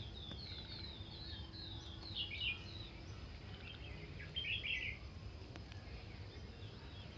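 Birds chirping: a quick run of short, high, falling chirps for the first few seconds, with louder calls about two seconds in and again about four and a half seconds in, then only faint chirps. A low, steady rumble of outdoor background noise runs underneath.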